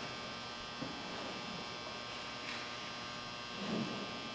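Steady electrical hum with a high buzz running over it, and a faint murmur of voices about three and a half seconds in.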